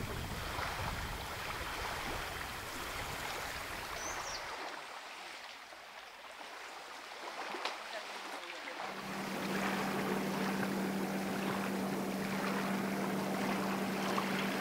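Lakeside outdoor ambience: water lapping and wind noise, dipping for a few seconds in the middle. About nine seconds in, a steady low hum joins it.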